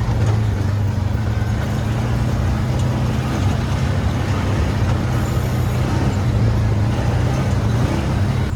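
ATV engine running steadily, a low even drone with a rushing noise over it.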